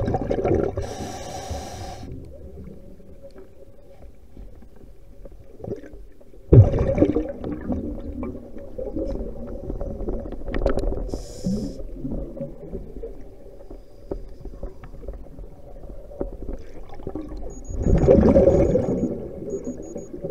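A scuba diver's exhaled bubbles rumble and gurgle past an underwater camera in three bursts, one at the start, the loudest about six seconds in and another near the end. A faint steady hum and low gurgling noise run between them.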